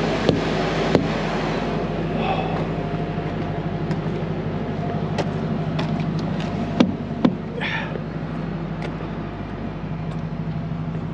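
Semi-truck diesel engine idling steadily close by, with a few sharp clicks and two louder knocks about seven seconds in.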